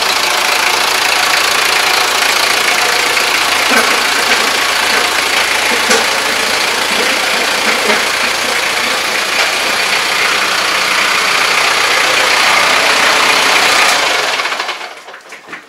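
Iseki semi-crawler tractor's diesel engine idling with a steady clatter, fading out near the end.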